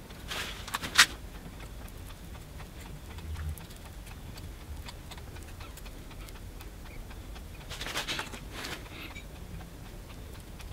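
Faint, irregular small clicks and scrapes of a metal tool and fingertips working carbon-fibre cloth down onto a clamped part, with one sharp click about a second in and a short scratchy rustle near 8 s.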